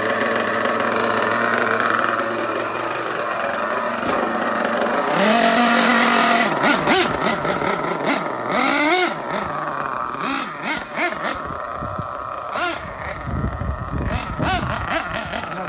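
Small nitro glow engine of a Losi 8ight-T RC truggy running. It runs steadily, gets louder about five seconds in, then its pitch swings up and down several times as the throttle is blipped.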